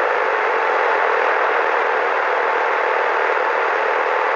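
CB radio receiver with an incoming carrier keyed up and no voice on it: a steady, loud rush of static with a faint steady whistle, switched on suddenly as the squelch opens.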